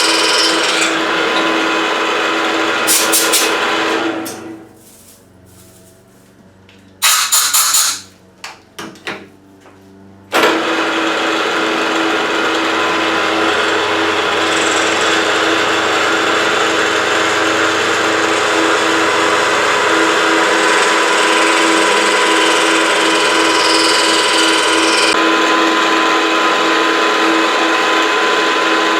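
Milling machine cutting with a 3/4-inch high-speed-steel end mill: a loud, steady machining noise with a constant tone running under it. About four seconds in it dies away, a few sharp clanks follow, and near ten seconds the cutting noise comes back abruptly and runs steadily on.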